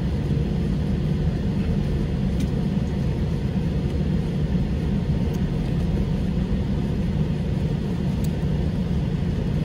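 Steady low rumble of an Airbus A320-200's cabin on the ground, with the engines at idle and the air conditioning running, heard from a window seat over the wing.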